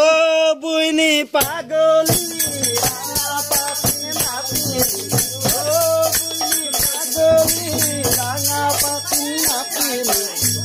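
Folk music for Holi: voices singing over a barrel drum and clapping, with sharp percussive strokes. A dense high jingling percussion comes in about two seconds in and keeps going.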